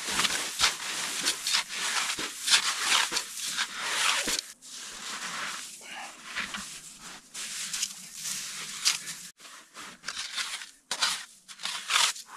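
Packed snow crunching and scraping as it is scooped out by bare hands from around a stuck truck's front wheel, in a quick, irregular run of scoops that slows for a while midway.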